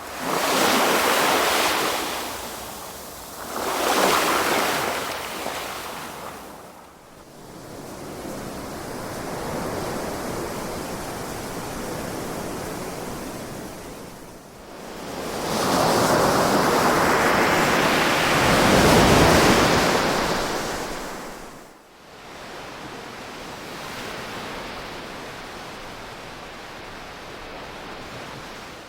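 Ocean surf: waves breaking and rushing in, swelling and ebbing. Two surges come in the first few seconds, and a longer, louder wave breaks a little past halfway, with a steady wash between.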